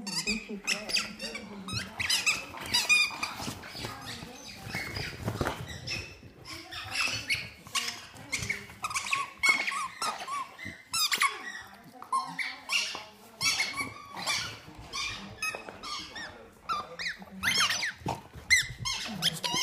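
Kong Squeeze rubber squeaky ball squeaked over and over as dogs chew it, in quick, irregular runs of short high squeaks.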